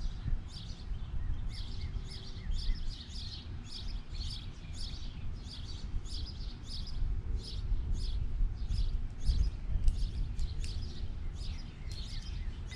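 A bird chirping over and over, about two to three short chirps a second, over a steady low rumble.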